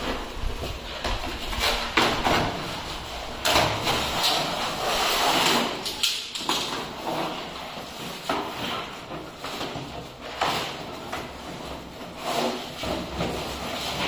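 Brown cardboard and paper packaging being torn and pulled off a new wooden door, in irregular bursts of ripping and rustling with a few sharp knocks.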